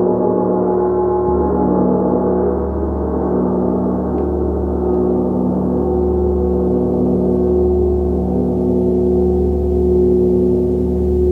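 Gong sounding in a sustained, continuous wash of many overlapping tones, with a deep low hum that swells and fades slowly about once a second.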